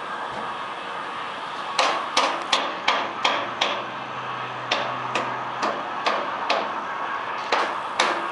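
A hammer striking wooden planks, nailing down boards for a platform: about a dozen sharp, ringing blows in quick runs of two or three a second, starting about two seconds in.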